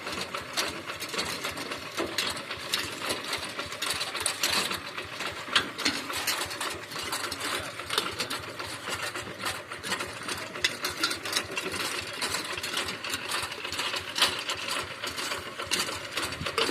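Rice-field hand tractor's diesel engine running with a fast, even clatter.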